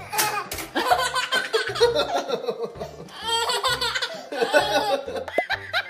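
A baby laughing in repeated bursts, with an adult laughing along.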